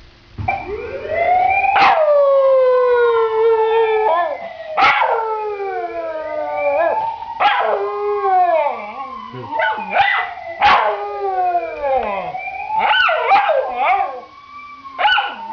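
Dog howling in imitation of an ambulance siren: a run of long wavering wails that slide up and then slowly down in pitch, each starting with a sharp yelp, one every two to three seconds.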